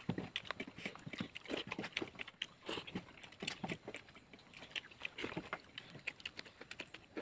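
A person eating rice and curry with his fingers: faint, irregular chewing and mouth clicks, with small clicks and scrapes of fingers mixing food on a steel plate.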